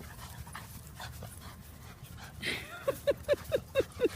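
A dog panting fast, in short pitched pants about four or five a second, starting around three seconds in after a stretch of faint background noise.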